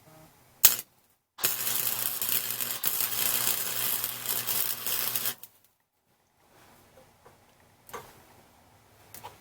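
Wire-feed welder arcing on the motorcycle's exhaust pipe: a loud, steady crackle over a low hum for about four seconds, then it stops abruptly. A single sharp click comes about a second before the arc starts.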